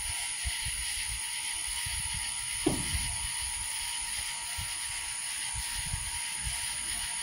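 Steady hiss of heavy rain with irregular low thumps and a constant faint high whine. About two and a half seconds in, a brief falling chirp.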